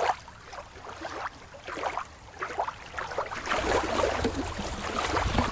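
Irregular splashing and lapping of water, first around a sea otter moving in the water, then shallow river water washing over rocks, louder from about three and a half seconds in.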